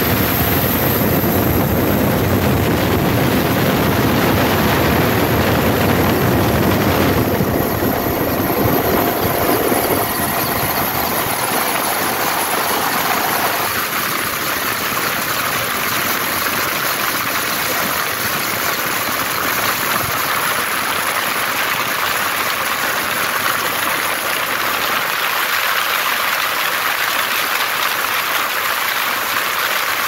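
Steady, loud engine and rushing-air noise of a light aircraft, heard from on board. The deep rumble drops away about ten seconds in, leaving a thinner hiss.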